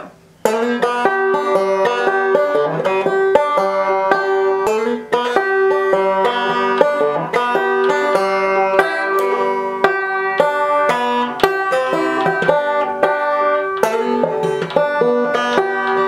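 A banjo fingerpicked by a beginner, playing a simple tune as a quick run of plucked, ringing notes. The playing starts about half a second in after a short pause and falters briefly about five seconds in.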